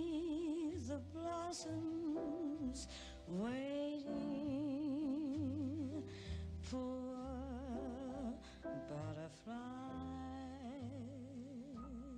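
Female voice singing a slow ballad over a soft accompaniment: long held notes with wide vibrato, several of them sliding up into pitch.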